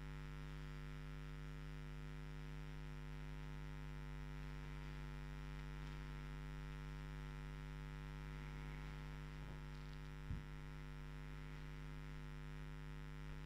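Steady electrical mains hum with its overtones, picked up by the recording. A single soft low thump about ten seconds in.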